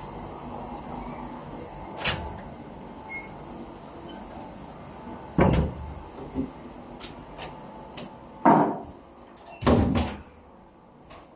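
A string of wooden door knocks and clunks, a louvred wooden door being handled, opened and shut, with the loudest thuds about halfway through and near the end. Underneath runs a steady background hum that drops away near the end.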